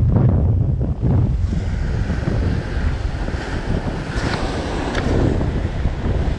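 Ocean swell breaking and washing against a rock ledge, with wind rumbling on the microphone. The wash hisses louder about four seconds in.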